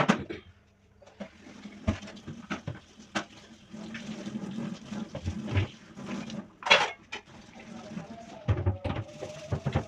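Dishes clinking and knocking together as they are washed by hand, over running tap water, with a few sharper clatters.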